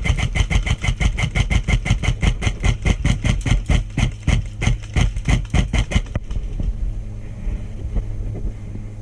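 An engine running with a fast, even chugging pulse of about seven beats a second. The pulse stops about six seconds in, leaving a steady low hum.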